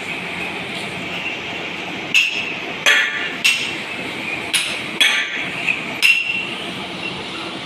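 Hammer striking metal, about seven irregular blows with a ringing clink, as steel power-loom frame parts are fitted together.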